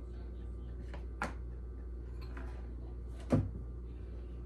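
Kitchen bowls being handled over a steady low hum: a light tap about a second in, then a sharper, louder knock with a short falling tail near three and a half seconds in as the emptied bowl is set down or knocked against the mixing bowl.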